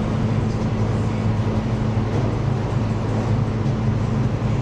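A steady, unbroken low mechanical hum with a constant low pitch and a faint hiss above it.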